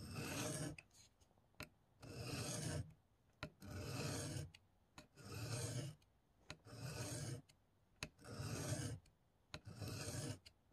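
M4 steel blade of a Spyderco Para Military 2 tanto drawn across a wet sharpening stone in single strokes while its edge is sharpened: seven scraping strokes, each under a second, about one every second and a half.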